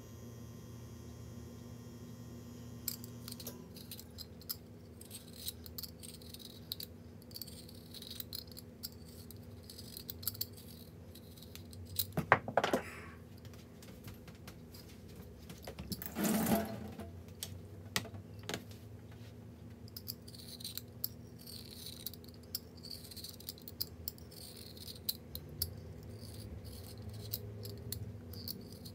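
Kitchen clatter sped up to double speed: scattered clicks and knocks of utensils and dishware being handled, with two louder clatters about twelve and sixteen seconds in.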